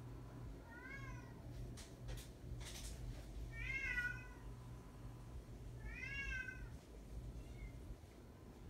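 Bengal kittens meowing: three short, high-pitched meows, each rising then falling in pitch, about a second in, at four seconds and at six seconds.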